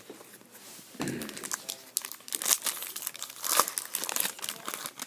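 Trading-card pack wrapper being torn and crinkled, with dense rapid crackling starting about a second in.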